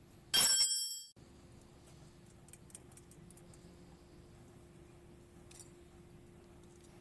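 Thin stainless-steel vanes of a turbine roof ventilator clinking and ringing as they are handled, cut off suddenly about a second in. After that, only a few faint clicks of small metal parts over a faint steady hum.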